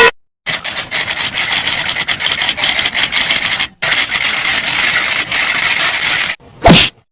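Rasping, scraping sound effect, like something rubbed or filed, in two stretches of about three seconds each with a brief break between. A short whoosh follows near the end.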